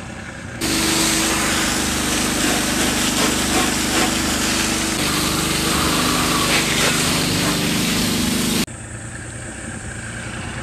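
Outboard motor of a small boat running fast under way, a steady engine tone under a loud rush of wind and water. It cuts in abruptly about half a second in and cuts off about two seconds before the end, leaving a quieter idling hum.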